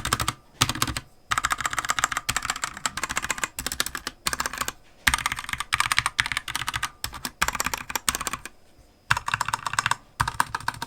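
Typing on a Keychron K2 Version 2 hot-swappable mechanical keyboard with red switches: quick runs of key clicks broken by short pauses, with a longer pause near the end.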